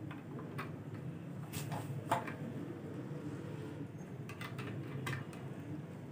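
Plastic clicks and knocks of a ring light's clip being pushed into its holder and the ring fitted onto its mount: several short sharp clicks spread out, the strongest about two seconds in, over a steady low hum.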